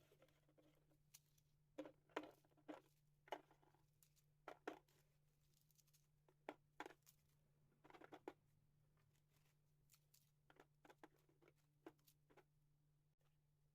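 Faint, scattered clicks and light knocks of small objects being handled, over a steady low hum.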